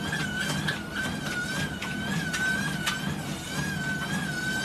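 Motorised treadmill running: a steady, slightly wavering motor whine over a low hum, with a few sharp knocks of footfalls on the moving belt.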